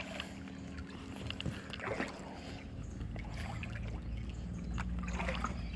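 A few light splashes in shallow water, roughly two and five seconds in, over a steady low hum that grows louder in the second half.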